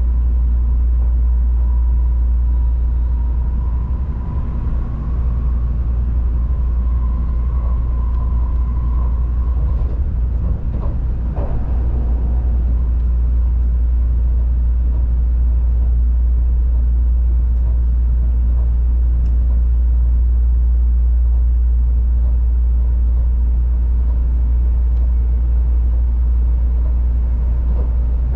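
Running noise of a Tokaido Shinkansen N700-series train heard inside a passenger car: a steady low rumble with a faint steady whine over the first several seconds and a couple of brief knocks about eleven seconds in.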